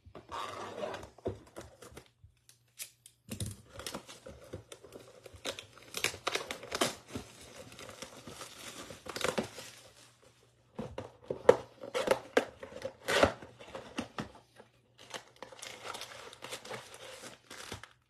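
Plastic wrap being torn and crumpled off a cardboard trading-card Mega Box, then the box being opened. It makes irregular crinkling with sharp snaps, the loudest of them past the middle.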